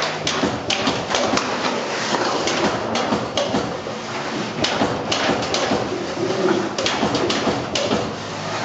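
AEM Unicore transformer-core machine cutting silicon-steel strip into laminations: irregular sharp metallic clacks, some in quick clusters, over the continuous rattle and scrape of the thin steel sheets sliding against each other as they feed out and are handled.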